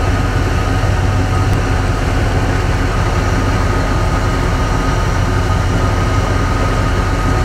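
Fishing boat's engine running steadily under way: a constant low drone with a thin steady whine above it.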